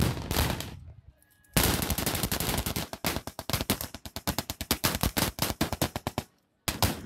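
Maxim-type machine gun firing blanks in rapid bursts, about ten shots a second: a short burst at the start, then after a brief pause a long burst of about five seconds that stops suddenly. Another burst starts just before the end.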